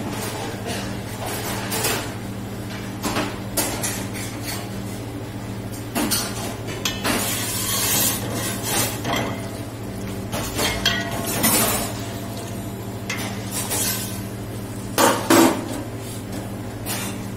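Metal ladle stirring and scraping in a stainless steel pot of hot oil on a gas burner, clinking against the pot, with a stretch of sizzling around the middle and a steady low hum underneath. Near the end, two loud metal clanks as the ladle is set down on the steel counter.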